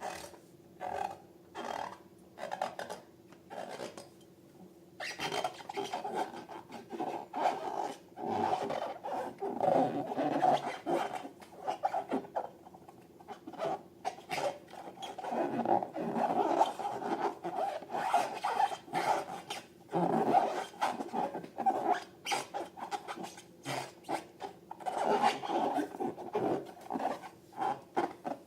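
Slime and rubber balloons being worked by hand: crackly rubbing and squishing. It starts as separate clicks about once a second and becomes continuous after about five seconds, then breaks into rapid clicks near the end.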